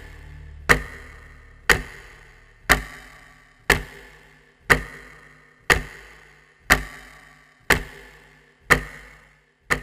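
Clock ticking once a second, each tick a sharp click with a short ringing tail, about ten in all.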